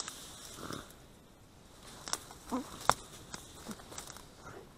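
Dry reed and grass stems rustling and crackling right at the microphone as a hand pushes through them to a burrow entrance, with two sharp snaps about two and three seconds in and a brief low pitched sound between them.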